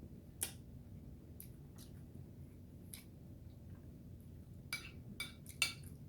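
Scattered light clicks and taps of someone eating a spoonful of casserole: a few single clicks, then three louder ones close together about five seconds in.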